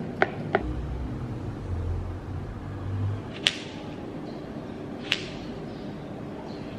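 A fork pricking pastry in a tart tin taps twice at the start, then a low rumble. Then a kitchen knife slices through strawberries and strikes a plastic cutting board twice, about a second and a half apart.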